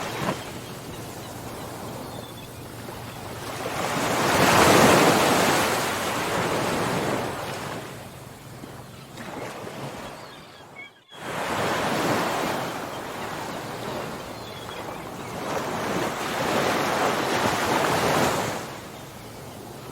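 Ocean waves surging and washing ashore, rising and falling in slow swells every few seconds; the loudest surge comes about five seconds in. Just past halfway the sound drops out briefly and suddenly to near silence before the waves return.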